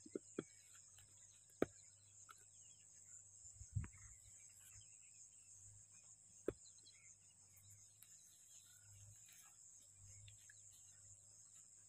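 Near silence: a faint, steady, high-pitched insect drone, with a few short sharp clicks scattered through it.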